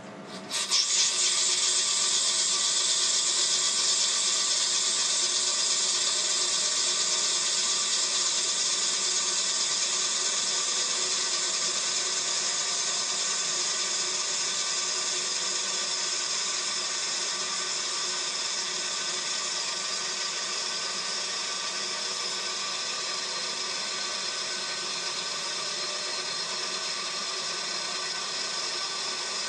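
A power tool or shop machine motor starts up about half a second in and runs steadily with a high whine, easing off a little towards the end.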